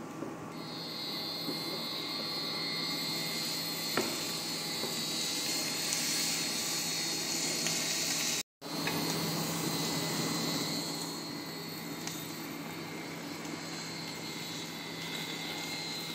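Mushrooms and bok choy stems sizzling in a frying pan as they are stir-fried with a wooden spatula, over a steady hiss and a low hum. The sound cuts out for a moment about halfway through.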